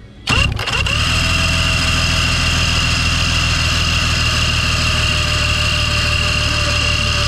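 Starter motor cranking the 1999 Mercury SportJet 175XR2's V6 two-stroke engine with its spark plugs out, so it spins evenly without firing, for the timing light to be read at cranking speed. It kicks in with a clatter about a third of a second in, then runs as a steady whine.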